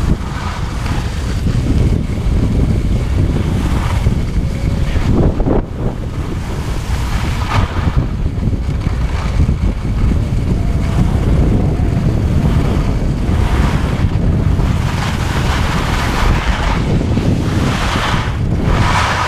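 Wind buffeting the camera's microphone as the skier descends at speed, a steady low rumble, with the hiss and scrape of skis carving across the snow rising and falling with the turns, loudest near the end.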